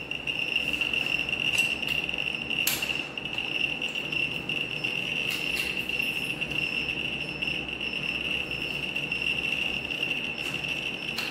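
A steady high-pitched tone throughout, with a few sharp metallic clicks and jingles as the connector fittings and dust-cap chains on an 880 Ir-192 gamma radiography projector are handled.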